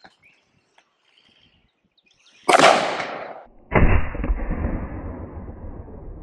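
Rifle shots from a PSA PA-15 AR-15 in .223 Remington. A sharp report about two and a half seconds in, then a second, deeper report about a second later that trails off in a long, slowly fading echo.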